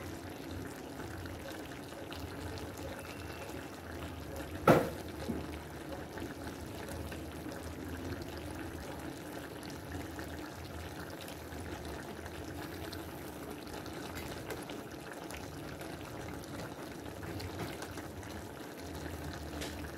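Coconut-milk stew bubbling steadily as it simmers in a pot, with one sharp knock about five seconds in.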